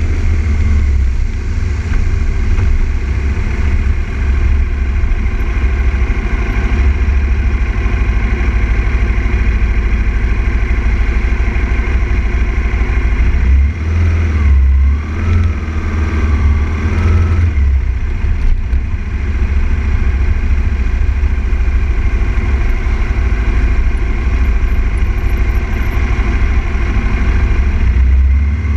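2000 Aprilia RSV Mille R's V-twin engine running at road speed, under heavy wind buffeting on the fairing-mounted camera's microphone. About halfway through, the engine note falls and then rises again.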